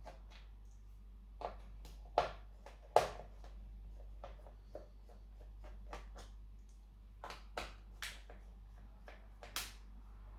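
Scattered small clicks and taps of tools and plastic parts being handled while an HP laptop is taken apart, irregular and sharp, the loudest two about two and three seconds in, over a faint low steady hum.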